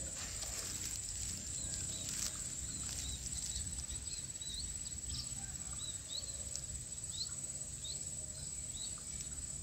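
Steady high-pitched insect trilling, with a run of short rising chirps repeating every half second or so through most of the stretch, over a low rumble.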